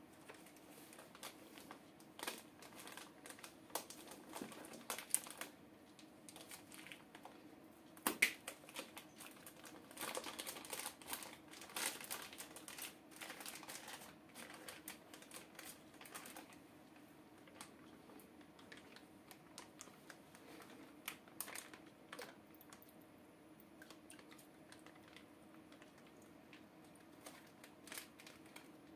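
Plastic fish-transport bag being untied and handled: irregular crinkling and rustling of the plastic with small clicks, busiest in the first half and sparser later.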